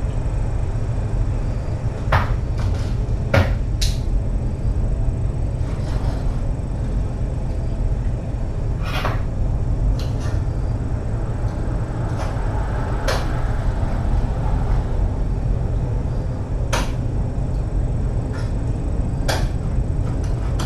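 Steady low hum of room noise with about seven sharp clicks and knocks scattered through it.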